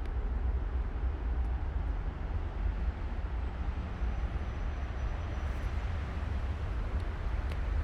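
Steady low outdoor rumble with a fainter hiss over it; no bell ringing can be made out.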